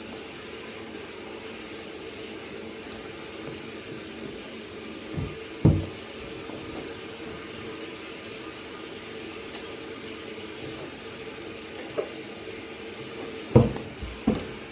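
Water running steadily from a tap during a dog's bath, with a few short thumps, the loudest near the end.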